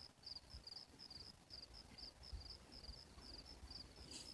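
Crickets chirping faintly at night: a steady, even run of short high chirps, a few each second.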